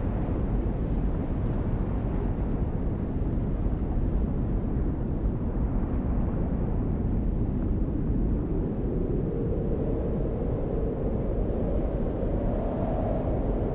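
A steady, deep rumbling noise, heaviest in the low end, with a faint held tone coming in about nine seconds in and rising slightly toward the end.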